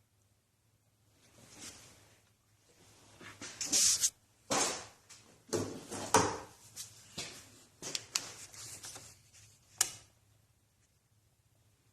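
A run of scraping and rustling handling noises, several loud, ending in a single sharp click.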